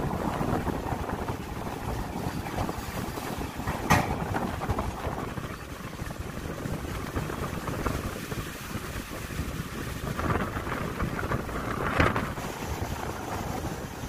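CAT 426F backhoe loader's diesel engine running steadily under load as the backhoe digs in brick and concrete rubble. Two sharp knocks cut through, about four seconds in and again near twelve seconds.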